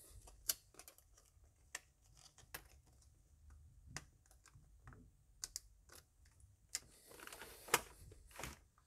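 Scattered light clicks and taps of hands handling flat ribbon cables and their connector on the back of an LCD monitor panel. A rustling stretch with one sharp click comes near the end as the shielding strip along the panel's edge is pressed down.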